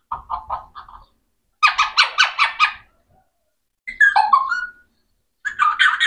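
Alexandrine parakeet squawking in four bursts of quick, harsh repeated notes, the third bending up and down in pitch.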